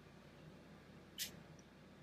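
One short, sharp click about a second in as a flat metal blade catches against a polycarbonate V wheel while prying at its bearing; otherwise faint room tone.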